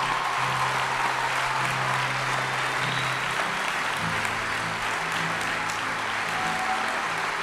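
A congregation applauding steadily, with soft band music underneath holding low sustained notes that shift about halfway through.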